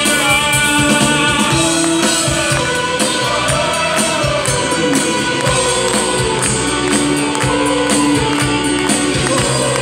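Live band playing an instrumental passage: bass guitar and keyboards over a steady drum beat, with a melody line moving on top.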